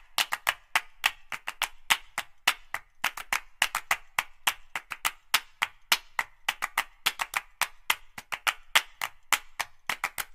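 Background music of a dry percussion beat: sharp wood-block clicks and claps, about five or six a second, in uneven groups.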